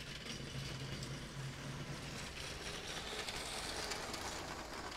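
LEGO train cars rolling on plastic track, a steady rattling clatter of small wheels with fine ticks. It grows loudest about three to four seconds in as the caboose and tank car pass close by.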